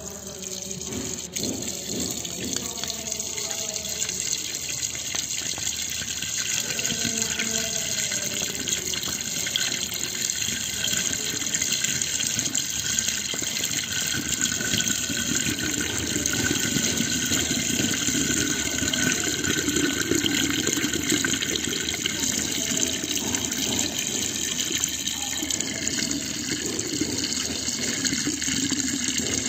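Water draining in a whirlpool down a drain opening, a steady rushing and gurgling that grows louder over the first few seconds and then holds.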